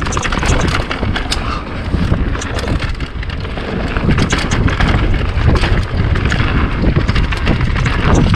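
Mountain bike descending rough dirt trail at speed: wind buffeting the microphone over the clatter and rattle of the bike, with frequent sharp knocks from the chain and frame as it bounces over roots and rocks.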